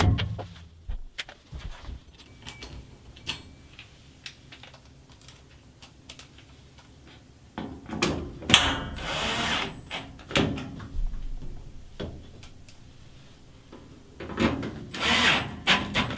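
Power drill running in two short bursts, about eight and fourteen seconds in, driving screws to refasten the washing machine's panels. Scattered clicks and knocks of the panels being handled come between the bursts.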